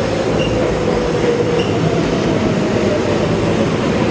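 Subway train running in an underground station: a steady loud rumble with a faint whine that slowly drops in pitch.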